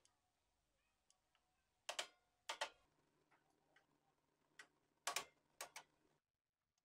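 A handful of short sharp clicks in uneven pairs: two louder ones about two seconds in, then a cluster of three or four around five seconds, all against near silence.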